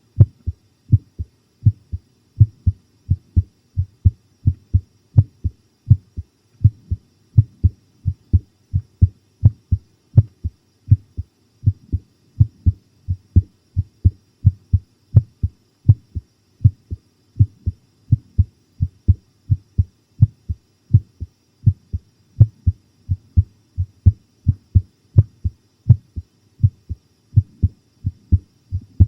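Close-up recording of a human heartbeat: deep lub-dub thumps in steady pairs, a little more than one beat a second. The heart is pounding from the fright of watching a horror show.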